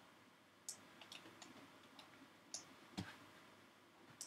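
Computer mouse clicks: a handful of sharp, separate clicks spread over a few seconds, with a quick little cluster about a second in and a stronger click with a dull knock about three seconds in, over faint room hiss.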